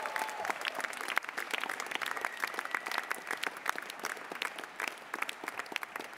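A large audience applauding: a dense, steady patter of many hands clapping.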